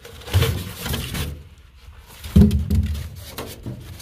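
Blocks of white beaded foam rubbing and scraping against each other and against the aluminum bench walls as they are worked loose and lifted out by hand. There are a few knocks in the first second and a louder, briefly pitched rub about two and a half seconds in.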